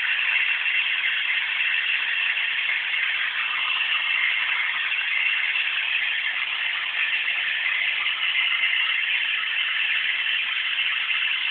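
Vacuum cleaner running steadily, a constant motor and airflow hiss with no change in pitch.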